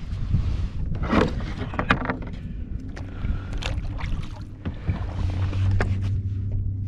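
Water sloshing against a fishing kayak, with scattered knocks and splashes on the hull as a caught fish is handled aboard.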